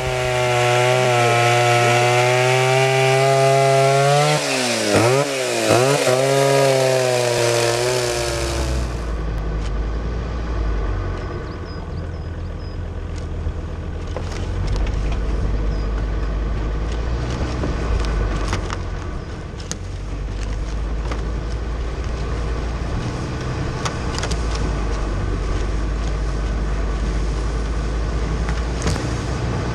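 Music for the first eight seconds or so, ending in a wavering pitch dive; then a Volvo XC70 driving slowly through dense scrub, a low engine and road rumble with branches brushing and scraping along the car and scattered twig clicks, picked up by a camera on the bonnet.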